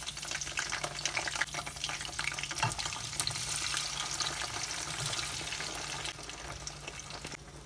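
Garlic and chilies sizzling in hot vegetable oil in a wok: a dense hiss with many sharp pops. Halved cherry tomatoes are tipped in partway through, and the sizzle eases near the end.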